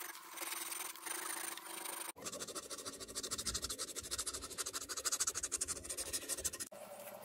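A strip of sanding belt pulled back and forth shoeshine-style over rounded pine blocks, a steady rasping rub. About two seconds in this gives way to a handheld power sander running against the wood, a rapid, even pulsing buzz that cuts off shortly before the end.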